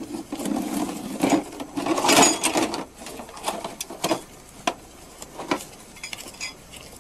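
Paper banknotes being leafed through and counted by hand: a run of short, crisp flicks and rustles.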